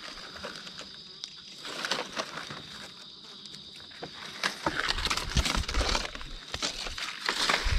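A steady high insect drone, with dry leaf litter and twigs rustling and crackling from about halfway through.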